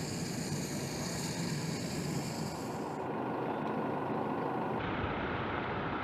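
Military jet aircraft taking off: steady engine rush with faint high whining tones. The whine fades about three seconds in, and the sound shifts again about five seconds in.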